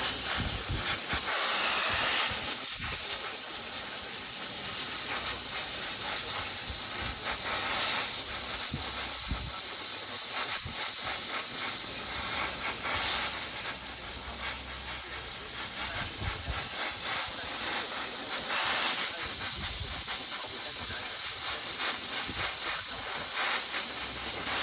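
Steady high hiss from a copper connector welding machine joining the copper pipe connections of a flat plate solar collector, with faint clicks beneath it.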